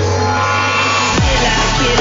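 Dubstep music from a DJ mix: a held deep bass note, then punchy kick drums with a falling pitch come in a little over a second in.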